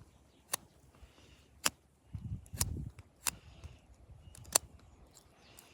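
Pocket multi-tool being worked by hand: sharp metal clicks, about five in all at roughly one-second intervals, with some low handling rumble between them.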